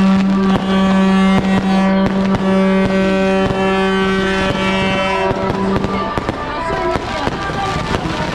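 Firecrackers popping and crackling over a loud, steady droning tone that stops about six seconds in. After that the crackling grows denser.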